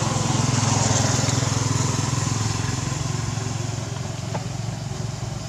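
A small engine running with a steady low hum, growing louder about a second in and then slowly fading.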